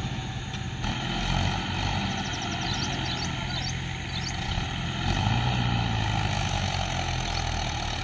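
Diesel engine of a Swaraj tractor running under heavy load as it pulls a loaded trolley out of mud. The engine note strengthens about five seconds in as the tractor strains against the load.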